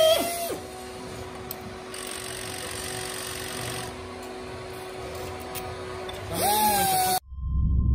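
Steady machinery hum with a constant tone and a few faint clicks from the hydraulic tube-pulling rig working a heat-exchanger tube sheet. Background music with singing fades out at the start and returns briefly near the end, then cuts off sharply into a low rumble.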